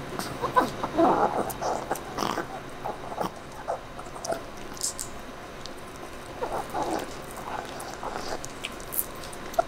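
A chihuahua gnawing on a calf neck bone: irregular clusters of crunches and clicks, with short quieter pauses between.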